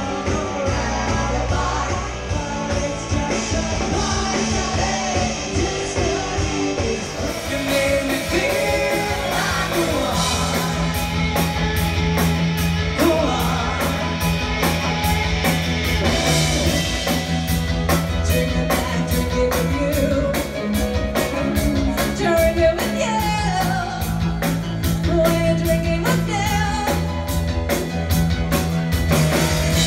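Live pop-rock band playing with singing, over electric guitar, bass, drum kit and keyboard. About seven seconds in the sound brightens suddenly, and a steady drum beat becomes clear soon after.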